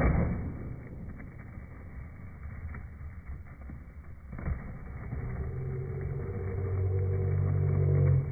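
Skateboard wheels rolling over rough concrete, a rumble with a low hum that grows louder toward the end. It is set off by a loud knock at the start and a second, smaller knock about four seconds in.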